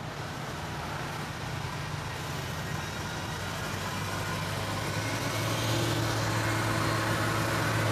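Diesel engine of a Plasser & Theurer EM120 track recording car running as it approaches slowly, its steady hum growing gradually louder, with a further steady tone joining about five seconds in.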